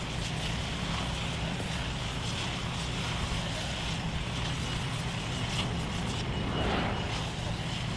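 Diesel engine of heavy construction machinery running steadily with a low hum, with a few faint clinks over it.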